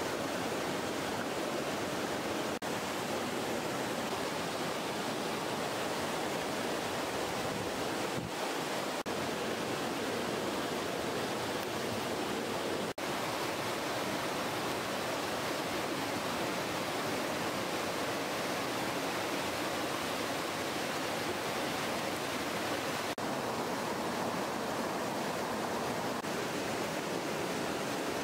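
Steady rushing of river water, an even hiss with no rhythm, broken by a few very brief dropouts.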